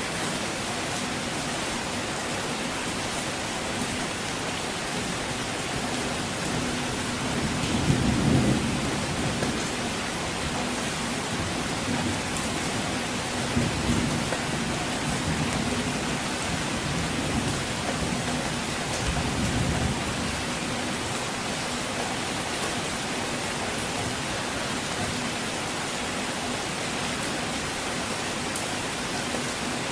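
Steady rain with distant thunder rumbling three times. The first roll, about a quarter of the way in, is the loudest, and two weaker rolls follow.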